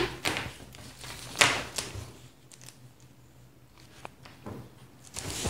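Faint, sparse rustles and light taps of a paper pattern sheet and a cloth tape measure being handled on a table, a few soft strokes spread through the quiet.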